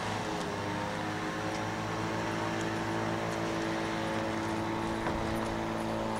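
A steady mechanical hum made of several fixed tones that do not change, with a few faint ticks.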